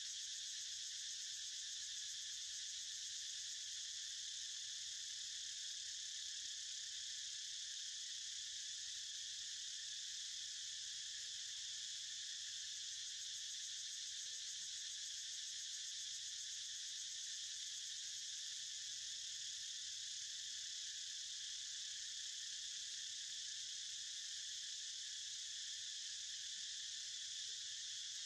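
Insect chorus making a steady, high-pitched drone.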